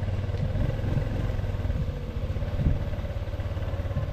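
Honda Super Cub C125's small single-cylinder engine running steadily with a fast, even beat, with one louder knock about two and a half seconds in.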